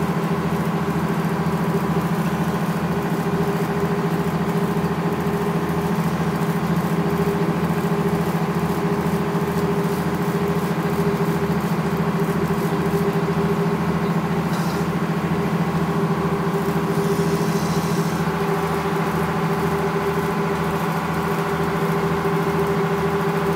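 Boat engine running steadily, a low even throb with a steady hum over it.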